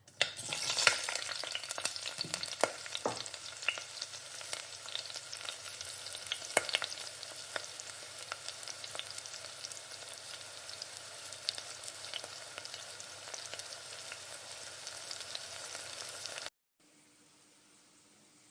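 Food sizzling in hot oil in a kadhai while a spatula stirs it, with frequent sharp clacks and scrapes of the spatula against the pan. The sizzle cuts off suddenly near the end.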